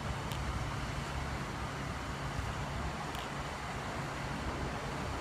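A vehicle running with a steady low hum over the wash of street traffic, with a few faint clicks.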